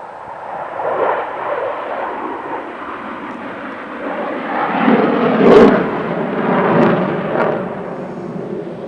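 F-16 fighter jets flying past with a loud jet roar that builds, swells twice with its loudest point about five and a half seconds in, then fades away.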